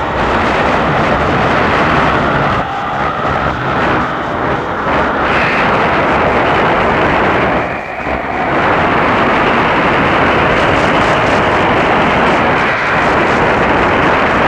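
Unidentified signal on 4640 kHz heard through a Tecsun PL-606 portable shortwave receiver: a loud, rough, hiss-like rush with a shifting texture, dipping briefly about halfway through.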